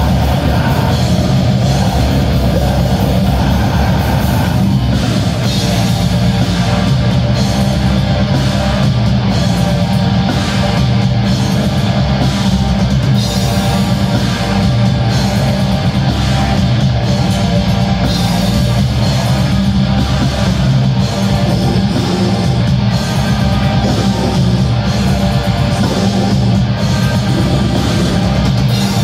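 A heavy metal band playing loud, with distorted electric guitars over a drum kit keeping a steady, driving beat.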